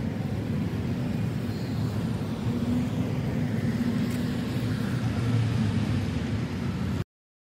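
Road traffic: cars driving past on a city road, a steady low rumble that cuts off suddenly near the end.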